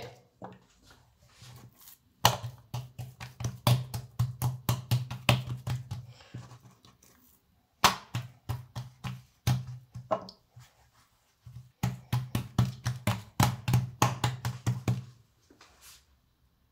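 Thin wooden rolling pin working msemen dough on a wooden worktop: rapid rhythmic knocking and thumping, in three runs with short pauses between them.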